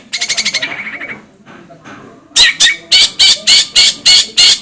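Long-tailed shrike (cendet) song: a fast rattling trill in the first second, a short lull, then a run of loud notes repeated about four times a second.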